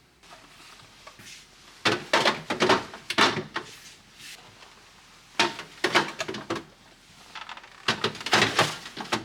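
Hard objects being handled and set down: three short bursts of clattering clicks and knocks with pauses between them.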